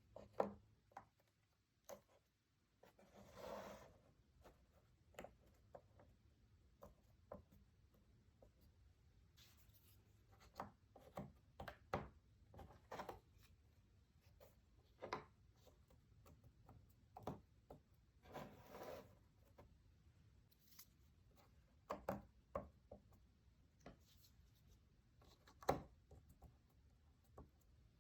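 Jigsaw puzzle pieces being handled: scattered light clicks and taps as pieces are picked up and pressed into place, with a few short rustles.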